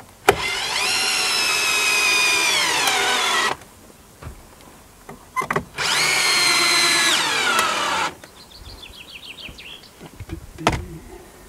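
Cordless drill running into a wooden board twice, each run about three seconds long, its motor whine sinking in pitch toward the end of each run as it loads up in the wood. A short burst of fast ticking and a few light knocks follow near the end.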